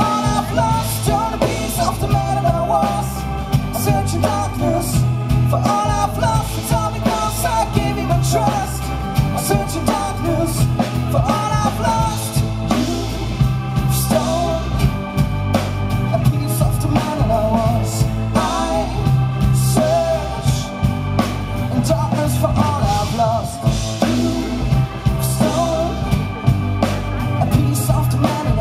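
Live rock-pop band playing a song: acoustic guitar and electric bass over drums, with a sung lead vocal.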